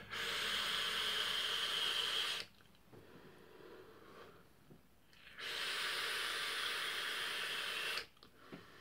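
Two long draws on a dual-coil rebuildable dripping atomizer fired on a mechanical box mod, each a steady hiss of about two and a half seconds with a quiet pause between.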